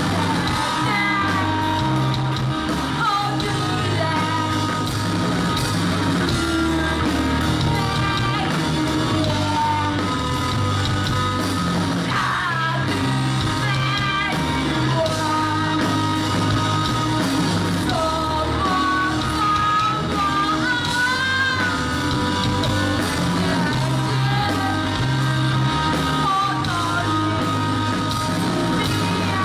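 Rock band playing a song live with a lead singer, the voice carried over bass and a steady drum beat.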